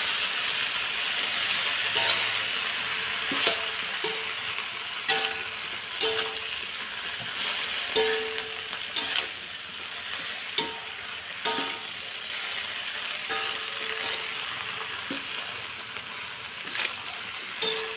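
Genjer (yellow velvetleaf) stir-frying in a metal wok: a steady sizzle, broken by about a dozen sharp clinks of the metal spatula against the wok at irregular intervals, each ringing briefly.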